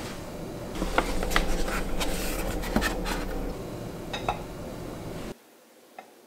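Eggs being lifted out of a paper-pulp egg carton: a run of light taps, knocks and scrapes of shell on pulp, over a steady low hum that cuts off suddenly near the end.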